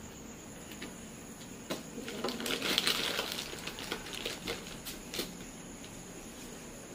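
Crinkly plastic packet rustling as a hand reaches into a bag of salt, loudest about two to three seconds in, with a few light clicks and taps of handling.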